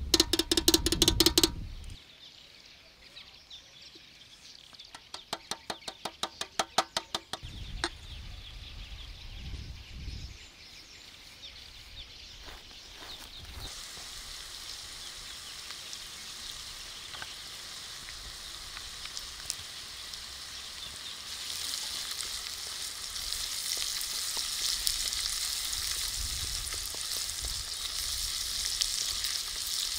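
A box grater shredding a block of cheese in quick strokes, then a second run of rhythmic strokes a few seconds later. After that, minced meat sizzles steadily in a pan over hot coals and grows louder in the last third as it is stirred with a wooden spatula.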